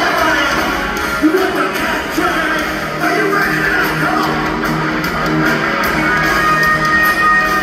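Live hard rock band playing: electric guitars and drums with a male lead vocal, heard from the audience through the hall's PA.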